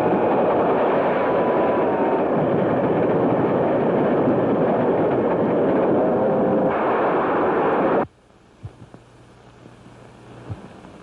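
Old film sound effect of a speeding steam train: a loud rushing roar, with the steam whistle sounding near the start and again for a moment later. It cuts off abruptly about eight seconds in, leaving a low hum and a few faint knocks.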